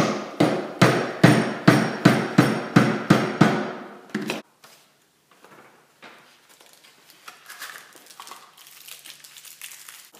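A mallet tapping the rotor shaft of a 2-horsepower three-phase electric motor about a dozen times, roughly three blows a second, to seat the shaft into its ball bearing. The blows stop about four and a half seconds in, leaving faint handling sounds on the bench.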